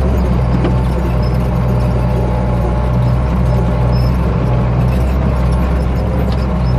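Ford 8830 tractor's six-cylinder diesel engine running steadily at a constant speed.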